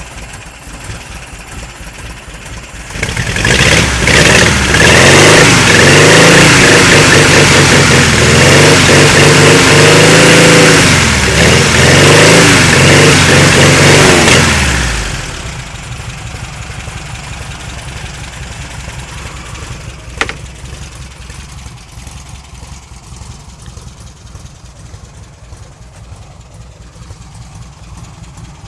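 Engine of a 1997 Baby idling, then revved repeatedly for about twelve seconds, the pitch climbing and falling several times at full loudness. It then drops back to a steady idle. A single sharp click comes about two-thirds of the way through.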